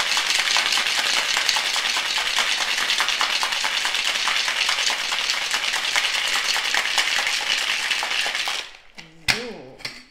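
Ice rattling hard in a Boston shaker (metal tin with a glass) as a cream cocktail is shaken vigorously. The shaking stops near the end, and a single sharp knock follows as the shaker is struck to break its seal and pulled apart.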